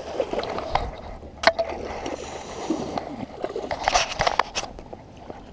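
Hooked fish splashing at the surface right beside a kayak, mixed with knocks and clicks of the rod and gear against the hull; a louder burst of splashing about four seconds in.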